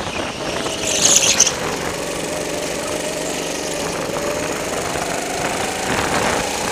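A rental go-kart's small engine running under the driver, heard from on board, its note sagging through the middle and climbing again near the end as the kart takes a corner and accelerates. A brief, loud burst of noise about a second in.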